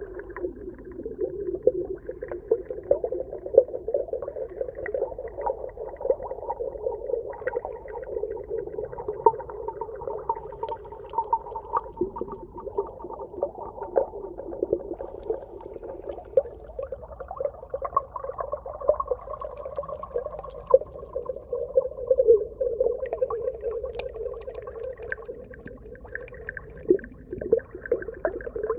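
Underwater reef ambience: a low, wavering drone with a higher tone drifting above it, peppered with many small clicks and crackles.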